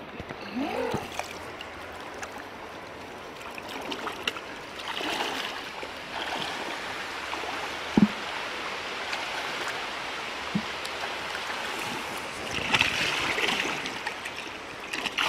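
Water sloshing and splashing as people wade through shallow muddy water, over a steady running-water background, with louder splashing about five seconds in and again near the end. A single sharp knock about halfway through is the loudest sound.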